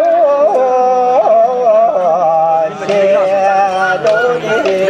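High, ornamented singing in Ache Lhamo folk-opera style: long held notes that waver and turn, with a second voice line just above. A few sharp knocks join in the second half.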